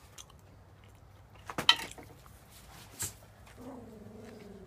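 Cats squaring off in a territorial standoff: a sharp, loud outburst about a second and a half in, a brief hiss around three seconds, then a low, drawn-out growl that starts near the end.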